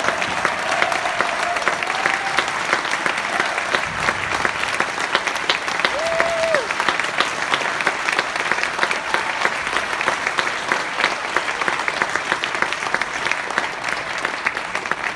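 Audience applauding at length, a dense steady clapping, with a single short cheer from the crowd about six seconds in.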